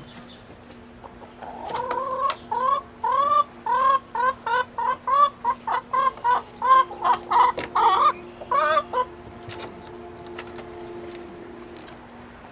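Domestic laying hens clucking: a run of loud repeated arched calls, about two a second, coming faster and overlapping before they stop about nine seconds in. Quieter clucks follow.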